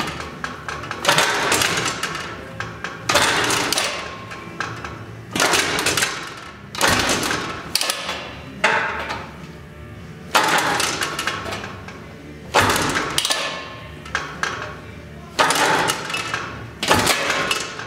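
Rotax-Honda ATC250R hybrid engine being kicked over again and again, about one kick every two seconds, each a sudden burst that dies away, against an engine its builder says has a great deal of compression. It does not settle into running between kicks.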